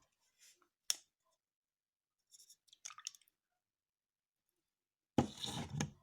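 Slime being handled and squished by hand: a sharp click about a second in, a few small sticky crackles around the middle, and a louder squish near the end lasting under a second.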